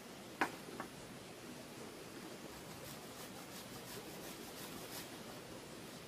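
Steady faint rushing of a small stream, with a sharp knock about half a second in and a fainter one just after.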